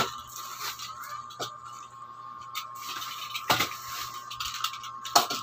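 Large cardboard shipping box being handled and shifted by hand: scattered knocks and scrapes, the loudest about three and a half and five seconds in.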